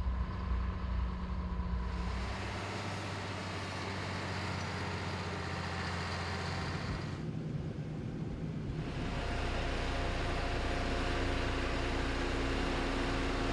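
Engines of heavy road-construction machinery running steadily, with the sound changing abruptly a few times as if between separate takes.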